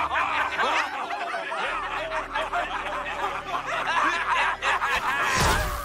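A group of cartoon warriors laughing together, several voices chuckling and cackling at once, with a sudden loud burst of noise near the end.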